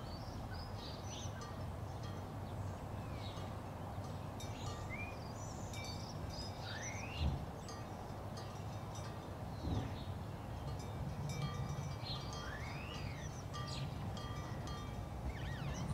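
Outdoor ambience: birds chirping with short rising and falling calls while wind chimes tinkle, over a steady low rumble. Two dull thumps come about seven and ten seconds in.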